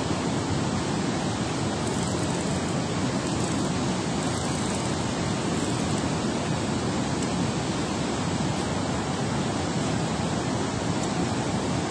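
Water rushing out of a dam spillway, a steady unbroken rush of noise strongest in the low range.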